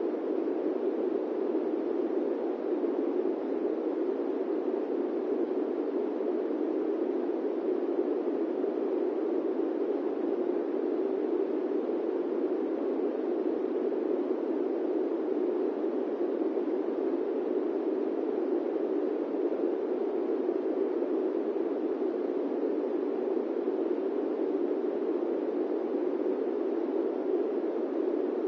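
Steady, unchanging airplane-cabin-style white noise: a constant rushing hiss weighted toward the low-mid range, with no changes or separate events.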